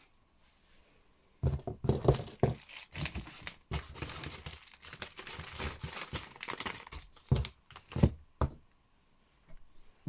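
Crinkling and rustling of packaging being handled, with irregular crackles for several seconds and a few sharper thumps near the end.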